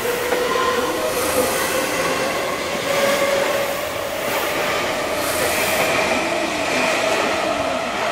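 Seibu 6000-series electric train running, its traction motors whining in a tone that climbs slowly in pitch as it gathers speed, over steady wheel-and-rail noise with brief hissing swells.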